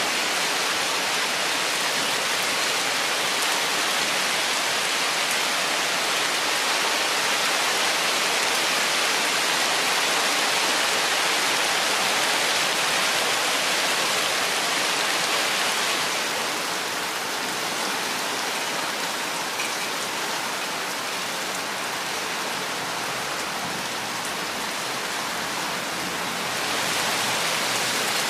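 Steady rain falling, a dense even hiss. It softens a little just past halfway and picks back up near the end.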